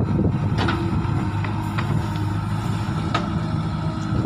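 JCB 3DX backhoe loader's diesel engine running steadily, with a few short clanks from the working backhoe arm and bucket.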